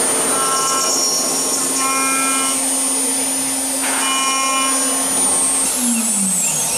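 CNC milling spindle of an aluminium-profile drilling-milling machine running with a steady high whine over a low hum while it machines an aluminium profile, with three short pitched cutting sounds. Near the end the spindle winds down, its pitch falling.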